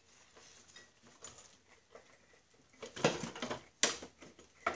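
Metal parts clinking and scraping as the hexagon drive tube is worked back onto its shaft on a Snapper rear-engine rider, with a burst of rattling about three seconds in and a sharp click just after. The tube is catching on a burr at the end of the shaft.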